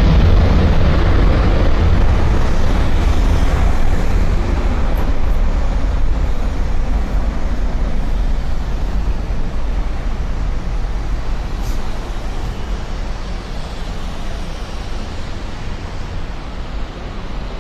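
Twin-engine widebody jet airliner's engines at takeoff power, a loud low rumble that fades steadily as the jet rolls away down the runway and lifts off. Road traffic runs underneath it.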